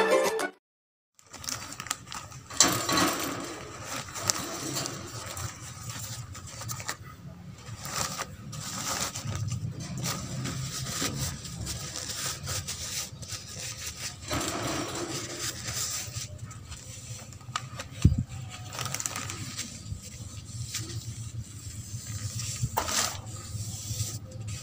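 Intro music cuts off half a second in. Then a Holland lop rabbit moves about a wire cage: irregular clicks, rattles and scuffs of its feet on the wire floor and bars, with a sharp knock about 18 seconds in, over a low steady room hum.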